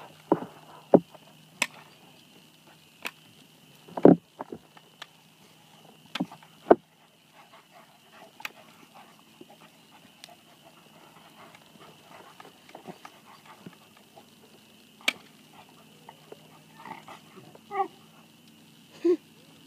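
Two dogs play-fighting: scattered sharp knocks and scuffling, the loudest knock about four seconds in, then a few short pitched dog noises near the end.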